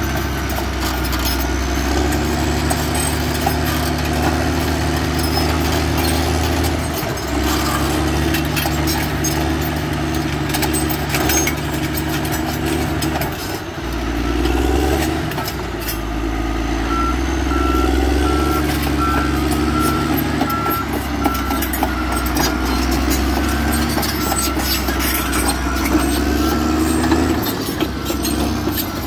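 Caterpillar D7R crawler dozer's diesel engine running under load, its pitch shifting several times as it works, with clanks and rattles from the tracks and stones. From about halfway through, a reversing alarm beeps steadily as the dozer backs up.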